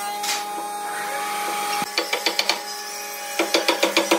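Wooden top rail being knocked down onto the posts of a pine door frame: two runs of rapid, light wood-on-wood taps, about two seconds in and again near the end, over a steady droning tone.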